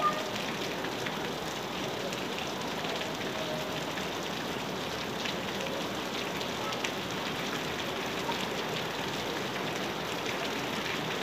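Heavy rain falling steadily on a paved street: an even hiss with scattered ticks of individual drops.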